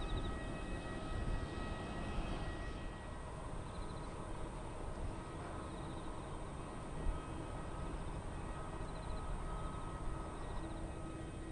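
Boeing 787-8 airliner's turbofan engines at idle thrust as it taxis: a steady jet hum with constant high whining tones.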